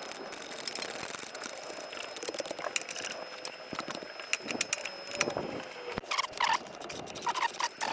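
Scattered light clicks and metallic clinks of hand tools being handled on a car's front suspension, over a faint steady high whine that stops about six seconds in; a few short chirps come near the end.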